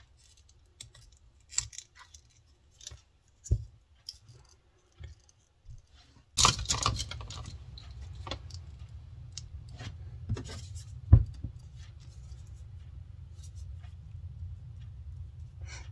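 Small metal binder clips being handled: wire handles clicking and clips clinking and knocking against one another and on a cutting mat, in separate sharp clicks, with a cluster of clatter about six seconds in and a sharper knock about eleven seconds in. A low steady hum comes in about six seconds in and stays.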